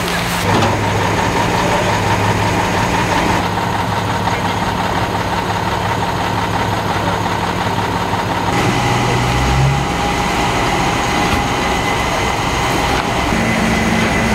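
Fire engine's engine running steadily while it drives the pump feeding the hose lines. Its hum drops to a new pitch about half a second in and again about eight and a half seconds in.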